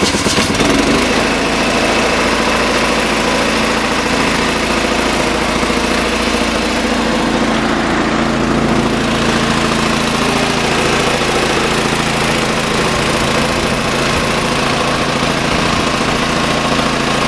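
Small gasoline engine of an air compressor running steadily just after being pull-started on choke, with the choke just opened.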